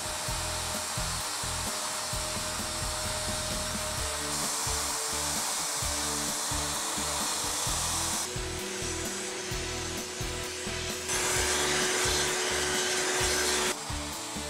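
Plunge router running at speed with its bit cutting into a walnut-and-maple board, hogging out a recess in shallow passes as the guide bushing follows a template. The steady high whine and cutting noise jumps in level and tone a few times.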